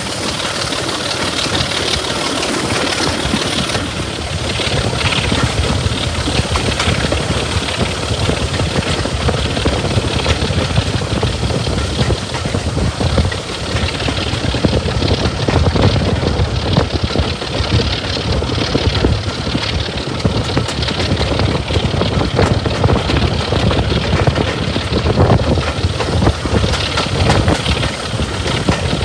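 Heritage diesel locomotive hauling a moving passenger train, its engine and the wheels running on the rails heard together from an open carriage window. The sound grows a little louder about four seconds in.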